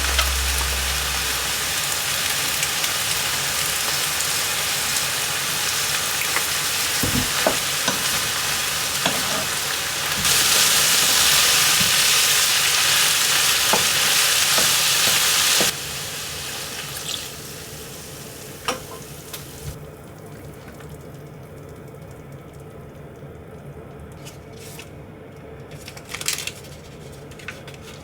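Food sizzling in a frying pan, with now and then a utensil tapping. About ten seconds in the sizzle suddenly gets louder for some five seconds, then drops to a quieter hiss with light clicks and taps.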